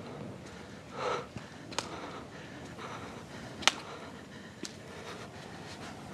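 A short breathy sniff about a second in, then a few sharp clicks, the loudest near the middle.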